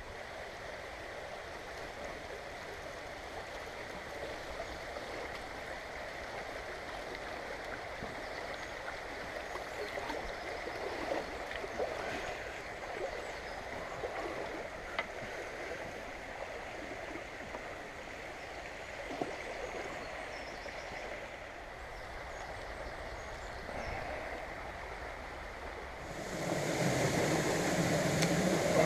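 Fast mountain stream running over rocks, a steady rush of water. Near the end the sound gets louder and fuller.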